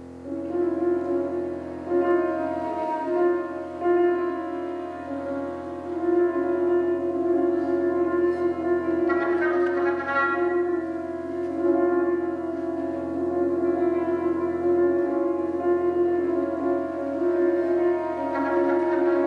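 Contemporary chamber quartet of flute, oboe, piano and double bass playing long held notes. The sound swells louder just after the start, and a brighter cluster of high tones comes in about nine seconds in.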